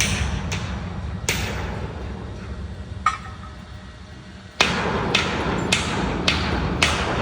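Hammer blows on metal in a steady rhythm, about two a second, over a steady low rumble. They stop a little after a second in, a single tap comes near three seconds, and the blows start again about four and a half seconds in.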